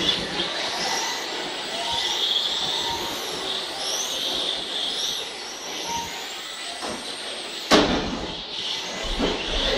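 Radio-controlled model trucks racing, their motors making high whines that rise and fall in pitch as they speed up and slow down. A single sharp knock sounds about three-quarters of the way through.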